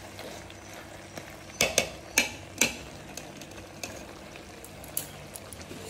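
Steel ladle stirring a thick mango and jaggery pachadi in a metal pot, clinking against the pot four times in quick succession a little before the middle, with a couple of fainter knocks later.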